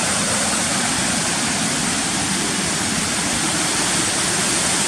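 Roughly 30-foot waterfall, a steady rush of falling water.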